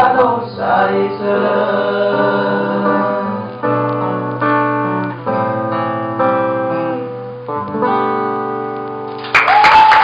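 Live acoustic guitar playing the closing chords of a song, with male voices finishing the sung refrain in the first second. About nine seconds in, the audience breaks into applause and cheers.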